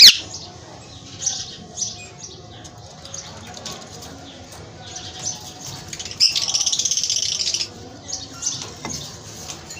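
Birds calling in short high chirps, with a sharp, loud downward-sliding squawk at the start and a denser burst of high chatter lasting over a second about six seconds in.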